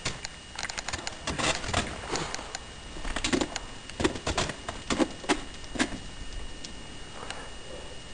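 Ice axe picks and crampon front points striking the ice of a frozen waterfall: a run of sharp knocks and scrapes, with the hardest blows about half a second apart from about four to six seconds in, then quieter.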